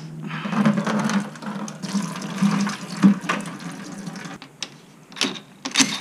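Coolant pouring and splashing out of a disconnected heat exchanger hose as the system drains, followed by a couple of sharp knocks near the end.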